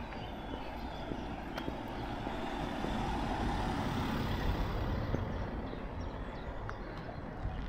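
A car driving past, its engine and tyre noise swelling about three seconds in and fading again.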